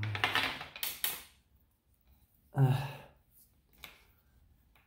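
A man's wordless breathy hums or sighs, one at the start and another about two and a half seconds in, while a few light clicks come from a soft plastic watch strap being fastened on the wrist.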